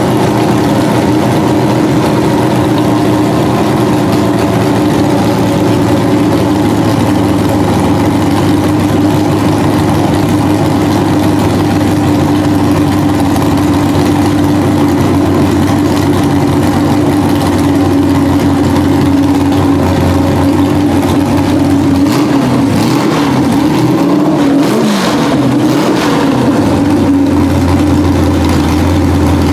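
Tractor's carbureted engine running steadily, its leaking carburetor needle and seat now fixed. Near the end the pitch wavers briefly and then settles into a deeper, steady note.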